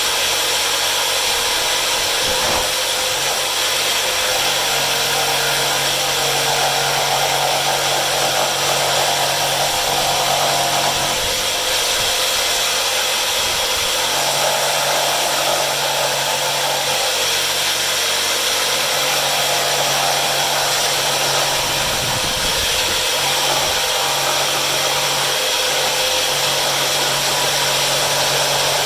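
Electric power tool running steadily, cutting a strip of wood back to a scored line, with a low hum that drops in and out as the load changes.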